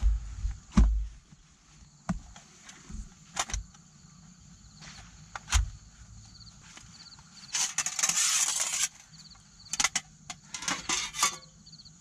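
Camping gear being handled by hand: a nylon stuff sack rustling, with scattered small knocks and clicks, and a longer sliding rustle about eight seconds in as the folding aluminium table is drawn from its bag. Insects chirp steadily in the background.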